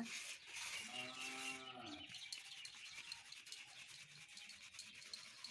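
Hand sieve being rubbed and shaken through crushed biscuit powder: a soft, steady scratchy rustle of powder and grains against the mesh. About a second in, a single low drawn-out call, like a cow lowing, sounds faintly for just over a second.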